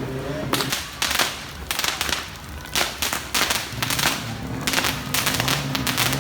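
New Year firecrackers going off outdoors: a string of sharp bangs and cracks at irregular intervals, some close and loud, others farther off. A low, pitched hum of music or voices joins in about two-thirds of the way through.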